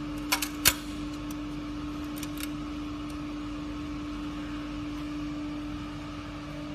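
A few sharp clicks about half a second in, from the throttle lever on the pressure washer's engine being pushed to open and locked in place, then a steady low hum.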